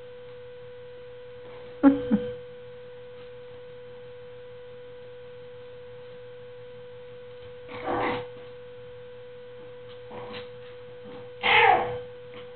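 Pomeranian puppies giving a few short yaps and growls as they play, the loudest near the end, over a steady electrical hum.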